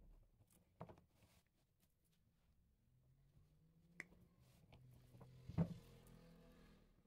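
Faint handling of a coiled coaxial cable and long-nose pliers: scattered light clicks and taps, with one louder knock late on. A faint low hum sits underneath in the second half.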